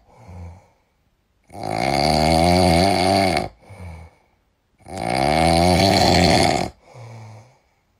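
Small dog snoring in its sleep: two long, loud snores about three seconds apart, each followed by a shorter, fainter one.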